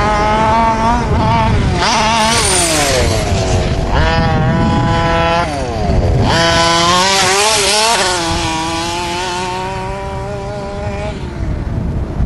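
Small high-revving engine running hard, its pitch climbing and then dropping sharply several times as it is throttled up and let off or sweeps past.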